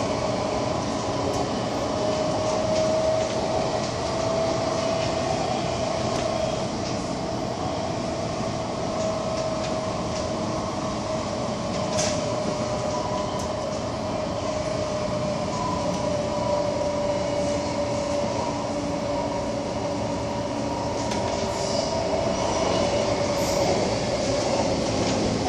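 MTR Tung Chung line A-Train running at speed, heard from inside the passenger car: a continuous rumble of wheels on rail with a steady whine that drifts slightly in pitch, and a sharp click about halfway.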